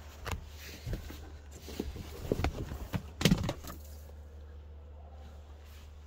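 A run of short knocks and rustles, loudest about three seconds in, over a steady low hum.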